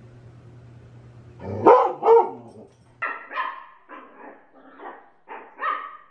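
A large dog barks twice, loudly. Then a small fluffy puppy gives about six short, higher yapping barks.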